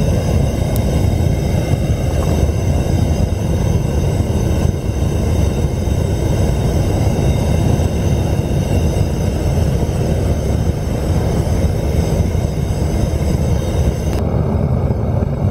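A steady, loud, low rumbling roar with a faint high whine over it, unchanging throughout.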